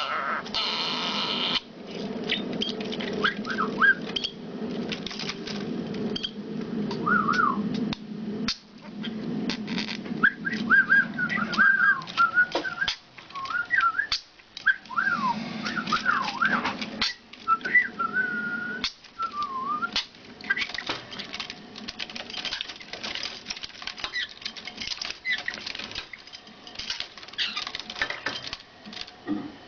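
A pet bird whistling and chattering in short rising and falling notes mixed with sharp clicks, over a low hum that comes and goes.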